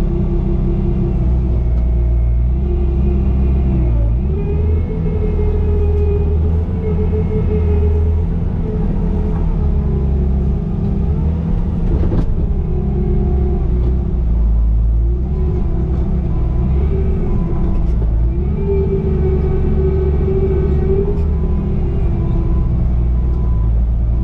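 Bobcat T595 compact track loader's diesel engine running with a hydraulic whine, its pitch dipping and rising several times as the loader works under changing load. One sharp knock about halfway through.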